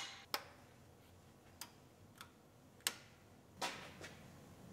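Faint, scattered sharp clicks, about five, of a shifter cable and its clips being fitted by hand under a pickup truck, with a short scuffing noise near the end.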